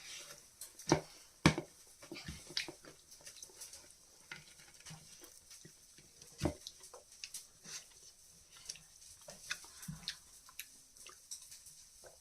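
People eating grilled chicken sekuwa: quiet chewing and lip smacks with scattered small clicks, irregular throughout.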